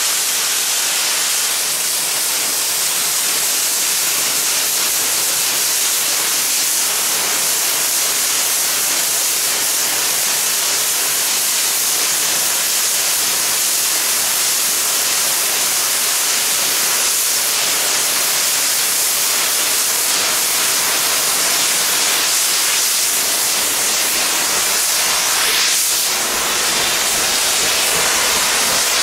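Loud, steady hiss of steam blowing from the open cylinder drain cocks of rebuilt Bulleid West Country class steam locomotive 34046 Braunton. Near the end a deeper rumble comes in as the locomotive starts to pull away.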